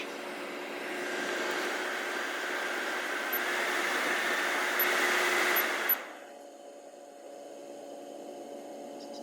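Evaporative swamp cooler's blower fan running with a steady motor hum and a rush of air, working quietly. About six seconds in the air rush drops suddenly after a click, leaving a quieter hum.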